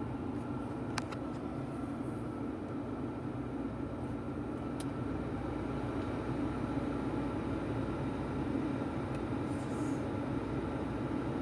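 Holden VE Commodore's air-conditioning fan blowing steadily inside the cabin with the engine idling, slowly getting a little louder, with a faint click about a second in.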